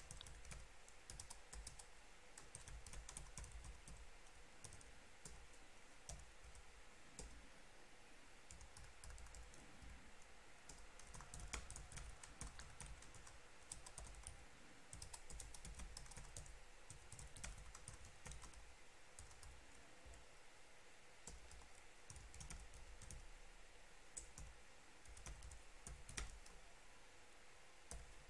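Faint typing on a computer keyboard: irregular bursts of quick keystrokes separated by short pauses, with a few sharper key clicks standing out.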